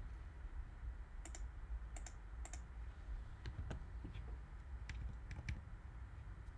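Faint, scattered clicks of computer keys, about eight in all, some in quick pairs, over a low steady hum.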